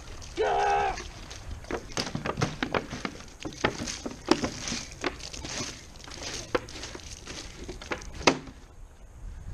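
Water poured from a plastic jug splashing and pattering onto a laptop's keyboard in uneven splashes and taps, ending with a sharp knock near the end. A short yell is heard about half a second in.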